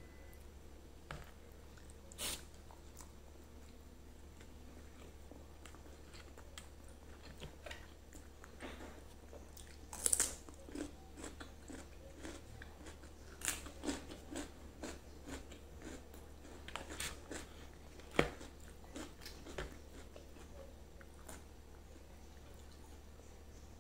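Close-up eating sounds of a person eating grilled chicken, rice and raw vegetables: chewing and biting with scattered crunches and mouth clicks. The loudest crunches come about ten and eighteen seconds in.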